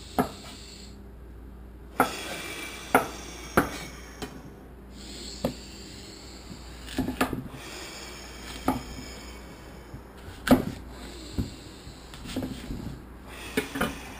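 Chef's knife cutting fruit on a wooden cutting board: sharp, irregular knocks of the blade hitting the board, about a dozen in all, with small handling sounds in between.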